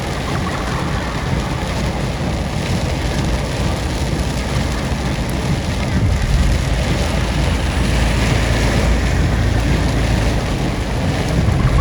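Steady rumble of a car driving, road and wind noise, growing a little louder about halfway through.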